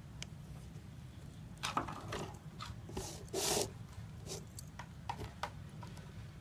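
Red cord being drawn through punched holes in a paper cover while a homemade ball is hand-stitched: scattered short rustles and scrapes, with one longer rasping pull about three and a half seconds in.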